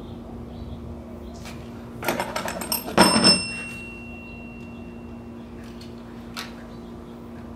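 Quick metallic clicking about two seconds in, then a louder clatter of metal with a short high ringing, from hand tools and parts being handled under the hood while a new coolant bypass valve is fitted. A steady low hum runs underneath.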